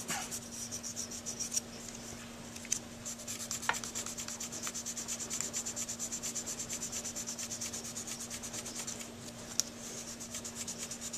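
320-grit sandpaper rubbed in quick, even back-and-forth strokes, several a second, over a Silverite metal Dukoff saxophone mouthpiece. This is the smoothing stage, working out the scratches left by the coarser 220 grit.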